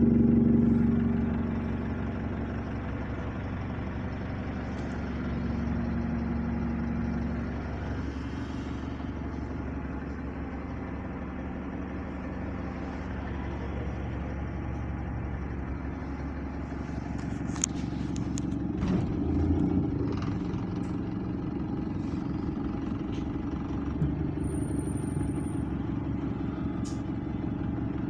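Double-decker bus engine running under the passengers on the upper deck as the bus moves in traffic. Its note drops about a second in and rises again around two thirds of the way through, with a few clicks and rattles from the body.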